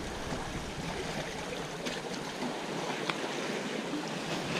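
Sea water washing against the rocks of a breakwater: a steady hiss, with a few light clicks about two, three and four and a half seconds in.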